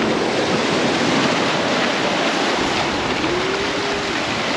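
Ocean surf washing over shoreline rocks: a steady rushing wash of water.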